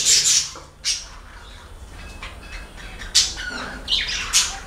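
Pet birds calling: a dense rapid chatter fades out in the first half-second, then two sharp squawks come about three and four seconds in.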